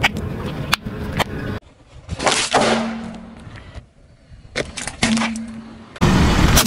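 A car tyre rolling over and crushing small objects in a string of quick cuts: crackling and crunching, several sudden loud pops, short stretches of the car's engine running, and louder tyre and engine noise near the end.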